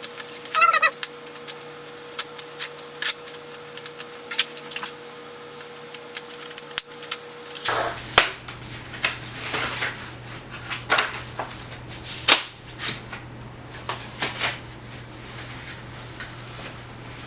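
Scattered clicks and knocks of hands and tools working on a bicycle, with a brief squeak about half a second in.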